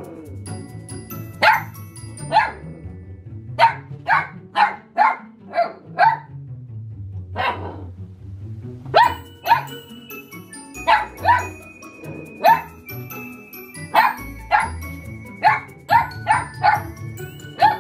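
Ten-week-old mini goldendoodle puppy barking at a new bell toy, about twenty short barks in quick clusters with brief pauses between, the excited play-barking of a puppy meeting an unfamiliar toy. Background music runs underneath.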